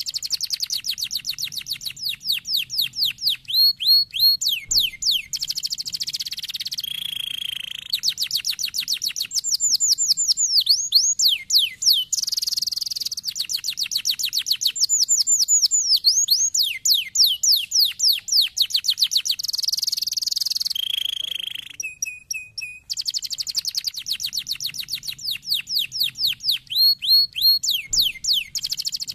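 Canary singing a long, fast song of rapidly repeated downward-sweeping notes and trills, with held steady notes in between and two brief breaks in the song.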